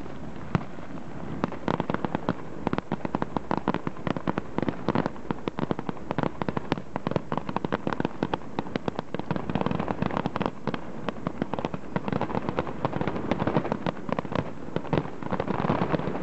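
Aerial fireworks display: many shells bursting in quick succession, heard as a dense, rapid run of crackles and pops.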